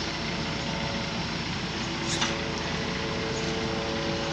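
Steady hum and rushing noise of a newly installed water pump running, with a short click about two seconds in.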